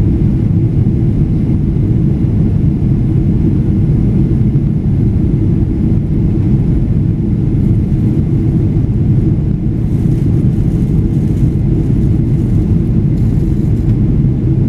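Steady low drone of a jet airliner's engines and rushing airflow, heard inside the passenger cabin.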